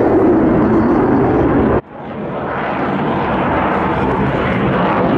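Loud, steady jet engine noise from a fighter in flight. It cuts off abruptly about two seconds in, and the noise of a second jet, a MiG-35 with its afterburners lit, fades back in and runs on steadily.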